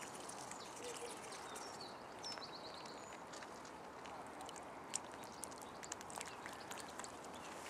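Canada goose feeding from a hand and dabbling in shallow water: faint, soft clicks and nibbles of its bill, more frequent in the second half. A small bird chirps briefly about two seconds in.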